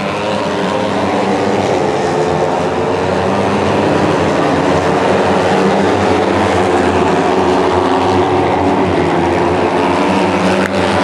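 A pack of J-GP3 racing motorcycles with 250 cc single-cylinder four-stroke engines racing past, several high-revving engine notes overlapping. The sound swells over the first few seconds as the bikes close in, then holds loud.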